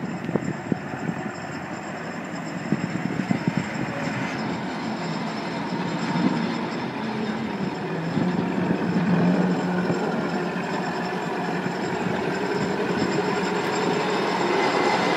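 Coles rail crane's diesel engine running as the crane travels along the track, with sharp knocks and clanks from its wheels on the rails in the first few seconds. The sound grows steadily louder as the crane comes close.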